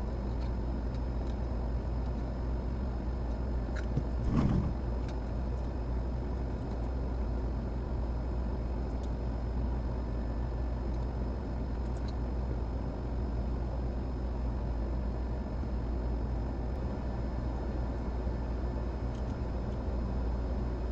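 Steady low rumbling background noise, with a short knock about four and a half seconds in and a few faint ticks.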